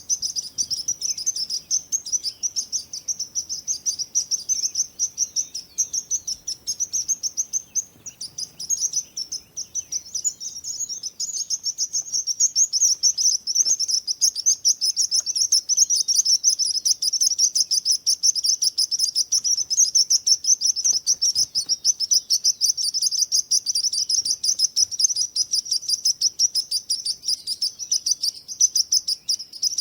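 A chorus of small songbirds chirping and twittering, rapid high-pitched notes piled densely on one another with no pause, thinning briefly about a third of the way through.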